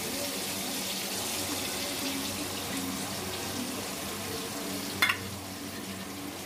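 Chicken pieces deep-frying in hot oil in a steel kadai, a steady sizzle. About five seconds in, a single sharp knock.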